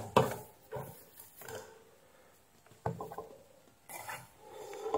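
A few scattered light clicks and knocks from multimeter probes and a circuit board being handled on a workbench, with one sharper click about three seconds in.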